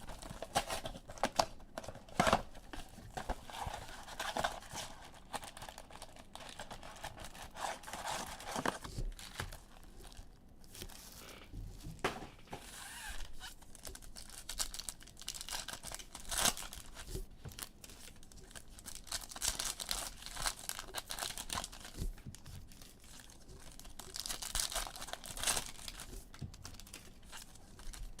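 Sports card packs being torn open by hand, with the foil wrappers crinkling in irregular crackles.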